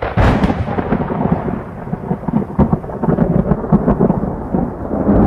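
A thunderclap: a sharp crack, then a long rolling rumble with scattered crackles.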